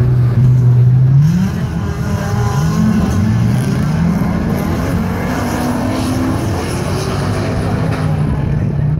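Autocross race car engines at full throttle on a dirt track. The engine holds steady, then revs up about a second in and climbs in pitch in several steps, like gear changes, before easing off near the end.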